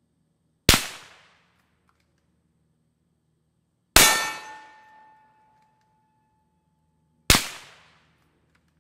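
Three suppressed rifle shots from a bolt-action .308 Winchester Remington 700 fitted with a Griffin Armament DL7 suppressor, a little over three seconds apart. The second shot is followed by a steel target ringing for nearly two seconds.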